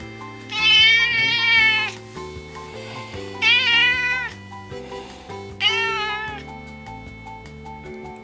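Cat meowing three times, each call a wavering pitch, the first the longest at over a second, over background music with soft steady notes.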